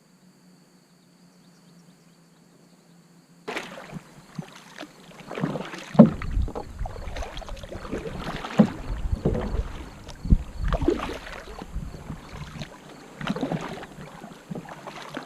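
Kayak under way: paddle strokes splashing water, with irregular knocks and thumps on the hull, starting abruptly a few seconds in after a faint steady hum.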